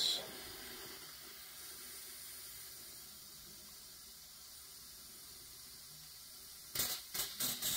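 Propane hissing steadily from a bottle, through an adapter, into the gas magazine of a Tokyo Marui Saiga 12 SBS gas blowback shotgun as the magazine is charged. A few sharp clicks come near the end.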